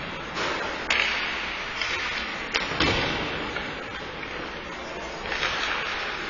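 Ice hockey play: sharp cracks of sticks and puck, once about a second in and twice in quick succession about two and a half seconds in, over steady arena noise.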